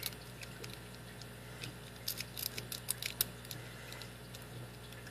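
Worm rake raking a four-wafer cabinet lock: small metallic clicks and scrapes as the pick works the wafers, coming in a quick flurry around the middle.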